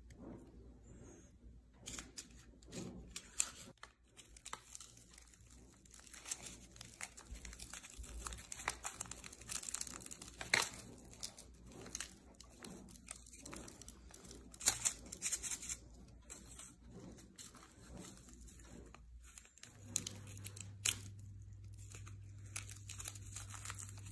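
Small toy packaging wrappers being unwrapped and torn open by hand: quiet, irregular crinkling and tearing rustles with occasional louder crackles.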